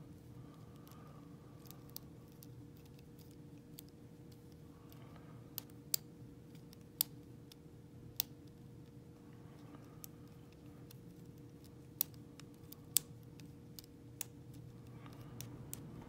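Small, irregular metallic clicks of a hook pick and tension wrench working the pins inside the keyway of an old Segal padlock, over a steady low hum.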